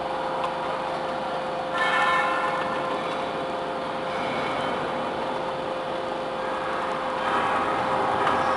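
Double-ram hydraulic metal baler running with a steady hum while pressing scrap metal, the metal ringing and screeching as it is crushed, most strongly about two seconds in and again near the end.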